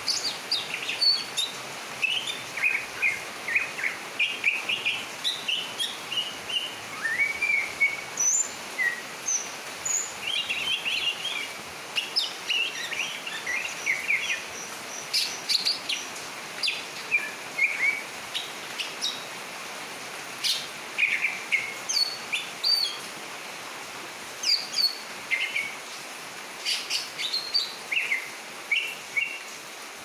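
A caged cucak ijo (greater green leafbird) singing: quick chirps and whistled notes, some sliding up or down, run together in short phrases with brief pauses between them.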